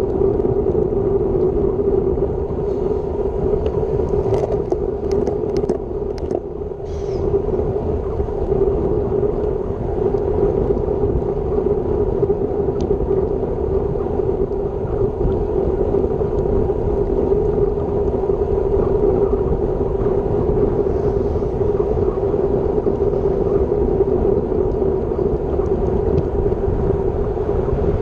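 Wind and road noise on a bicycle-mounted action camera at about 35 km/h: a steady rush with a low drone. There are a few light clicks between about four and seven seconds in.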